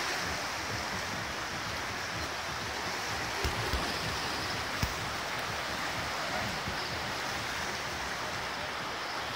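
The River Cher in flood, fast water rushing and churning past the stone footing of a bridge-side building in a steady rushing noise. A few brief low bumps come a few seconds in.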